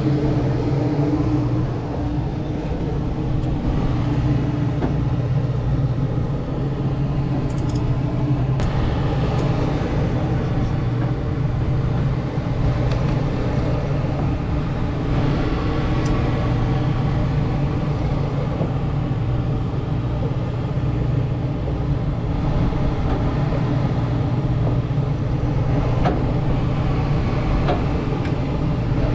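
Steady low drone of a sportfishing boat's engine running, with a few faint clicks of fishing tackle being handled.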